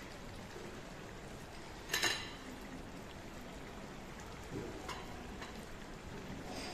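Steady background hiss with one short, sharp clink about two seconds in and a softer knock near the five-second mark.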